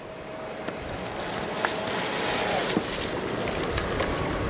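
Streamline RC Thrasher electric jet boat, running on a 5S LiPo, under way on the water. Its steady rushing noise grows louder as it comes closer.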